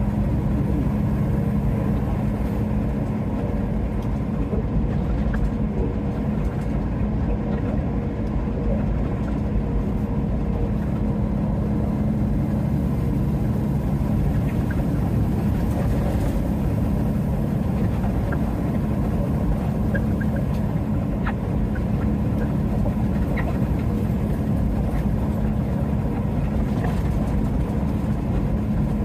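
Semi-truck's diesel engine and tyre noise, running steadily at highway cruising speed, heard from inside the cab.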